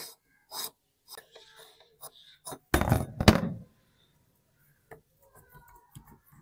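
Rusty metal parts of an antique hand meat grinder being handled as its threaded locking ring is unscrewed and taken off the barrel: scattered scrapes and light metal clinks, with a louder double clunk about three seconds in.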